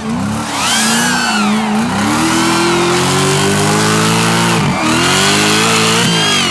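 Drift car engine revving, its pitch rising and falling, with a higher whine over it.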